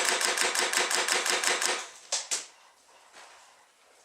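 Airsoft electric gun firing a full-auto burst of about two seconds, roughly a dozen shots a second, then a brief second burst.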